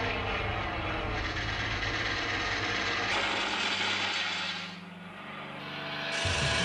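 Dense, harsh mechanical noise over low steady droning tones, like heavy machinery or aircraft engines. It switches abruptly to a new texture about three seconds in, dips around five seconds, and jumps again near the end.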